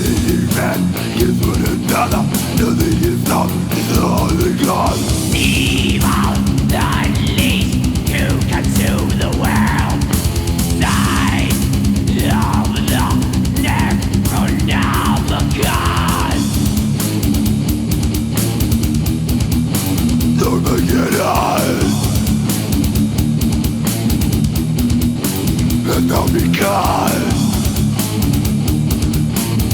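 Death metal band playing from a 1995 tape recording: very fast, even drumming under heavily distorted guitars. High sliding notes rise and fall over it through the middle and again near the end.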